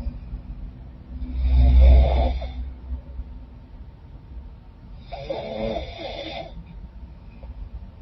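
A woman snoring in her sleep through a stuffy, runny nose: two snores about three and a half seconds apart, the first louder and deeper.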